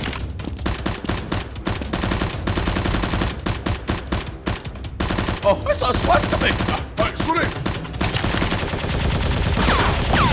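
Gunfire sound effects dubbed over the blasters: rapid, continuous automatic fire, with a few gliding whistle-like tones about midway and near the end.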